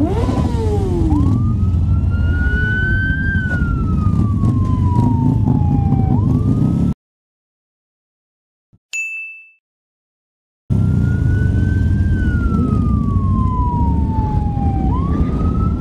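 Emergency-vehicle siren wailing in slow sweeps, each rising for about two seconds and falling for about three, over the low steady rumble of a group of idling motorcycles. The sound cuts out for about four seconds in the middle, broken by a single short, bright chime.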